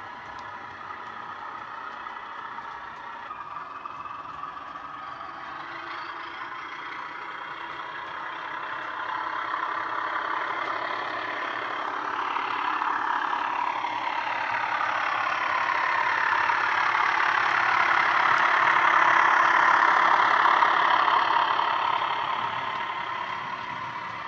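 Sound-fitted model Class 16 diesel locomotive: the DCC sound decoder's recorded diesel engine sound playing through a small bass-enhanced speaker as the train runs. It grows steadily louder as the model comes closer, is loudest a few seconds before the end, then fades as it runs past.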